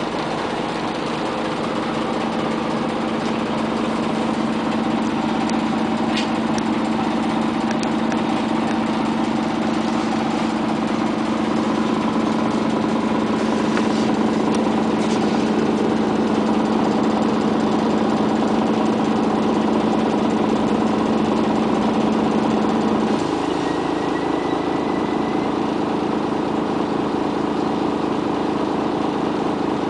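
Scania CN94UA OmniCity city bus engine idling steadily, heard from inside the passenger cabin. The engine's tone changes slightly about three quarters of the way through.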